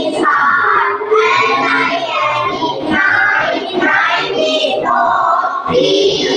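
A voice chanting in a sing-song, song-like melody, reciting the English number words of a counting drill.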